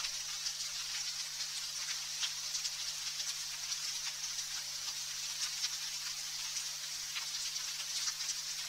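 Sparse raindrops ticking at irregular intervals over a steady high hiss.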